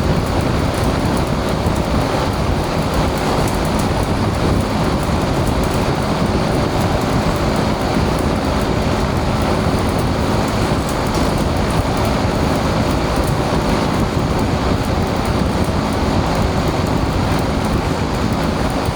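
Welding arc on pipe, crackling and hissing steadily without a break.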